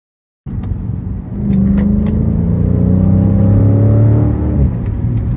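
Dodge Challenger SRT's V8 engine under acceleration, cutting in abruptly about half a second in, its pitch climbing steadily for about three seconds and then dropping suddenly near the end.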